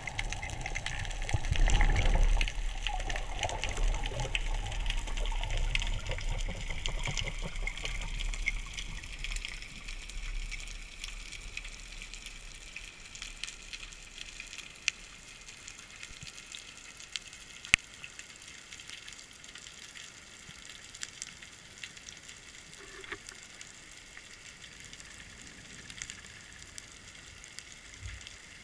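Underwater water noise picked up through a camera housing as a diver descends: a rushing, gushing sound, loudest about two seconds in, that fades over roughly ten seconds to a faint hiss with a few scattered sharp clicks.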